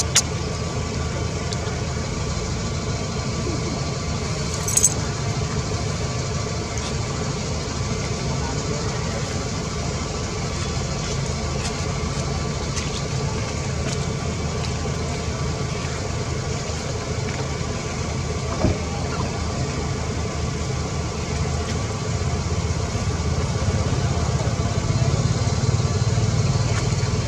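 Steady low mechanical hum, like an engine running, growing somewhat louder near the end, with a sharp click about five seconds in.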